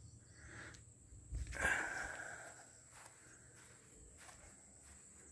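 Quiet outdoor ambience: footsteps on grass, with a brief louder rustle about a second and a half in, over a faint steady high-pitched insect drone.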